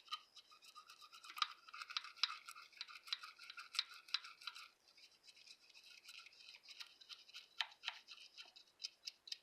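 Toothbrush scrubbing hand cleaner over a vintage sewing machine's surface: quick scratchy back-and-forth strokes, dense for about the first half and sparser after.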